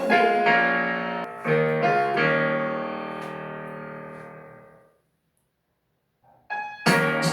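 Piano music: a few chords struck in the first two seconds and left to ring out, fading to silence about five seconds in. Music starts again near the end.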